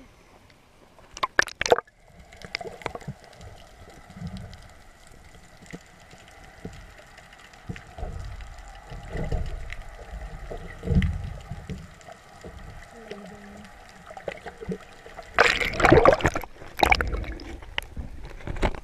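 Water heard through a submerged camera: muffled sloshing and gurgling with low surges and a faint steady hum. Near the end come loud splashes as the camera breaks the surface.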